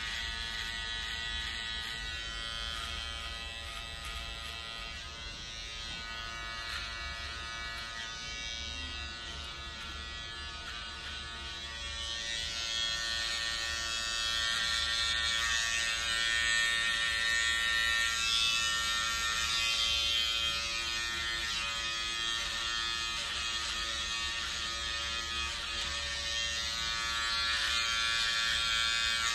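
Small electric detailing clipper buzzing steadily as it trims a moustache over a comb, getting louder a little before halfway through.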